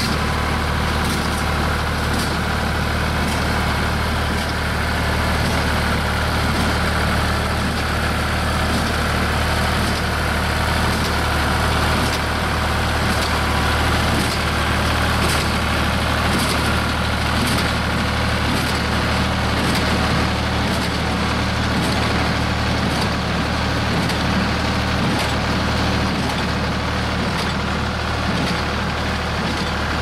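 Tractor engine running steadily under load as it pulls a Case 230 small square baler baling hay, with the baler's mechanism clacking about once a second.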